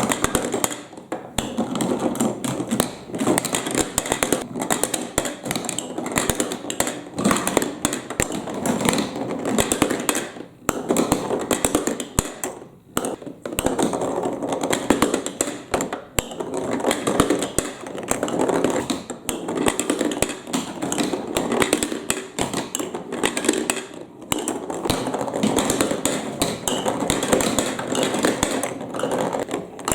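Marbles rolling and clattering down plastic block and magnet marble-run tracks: a continuous rattling rumble full of small clicks, dropping away briefly a few times.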